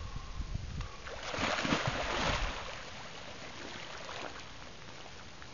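A person dropping into icy water through a hole cut in the ice: a splash and churning water lasting about a second, starting a little over a second in. Low wind rumble on the microphone before it.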